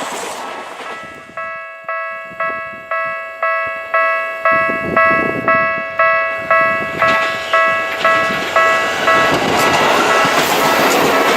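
Japanese level crossing warning bell dinging about twice a second, each ding decaying. The noise of a passing train fades as it starts, and near the end a train's rising noise covers it.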